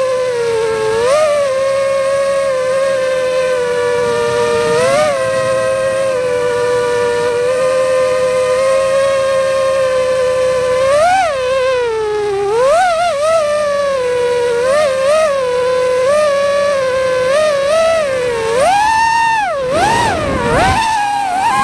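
Small quadcopter drone's motors and propellers whining steadily, the pitch jumping up briefly with each burst of throttle. In the second half the pitch wobbles rapidly up and down, then surges high near the end and drops sharply.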